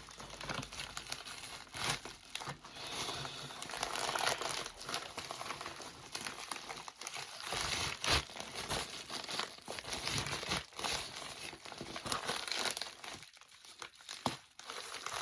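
Packaging crinkling and rustling as items are unwrapped by hand from a mail-order box, with scattered sharp crackles and a short lull near the end.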